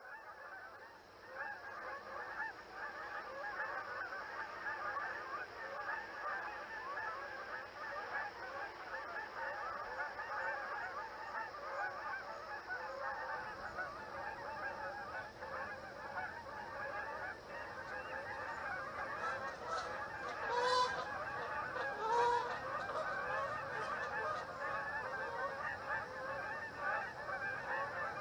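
A flock of Canada geese honking, many calls overlapping without a break. Two louder single honks stand out close together past the middle.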